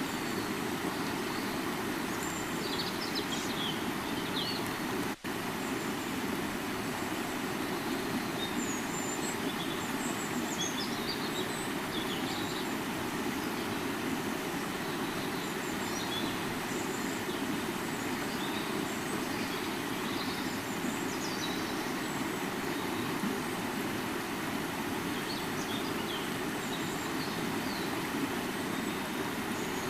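River water flowing in a steady rushing wash, with faint high chirps scattered over it. The sound drops out for a split second about five seconds in.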